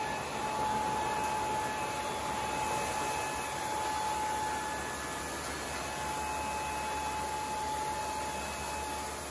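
Kündig wide belt sander running steadily: an even machine hiss with a constant mid-pitched whine.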